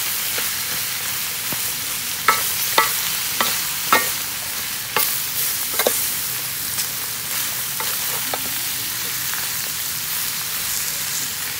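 Sliced palm heart and minced pork sizzling as they are stir-fried in a steel wok, a wooden spatula scraping through the food. A few sharp knocks ring out between about two and six seconds in as the spatula strikes the pan.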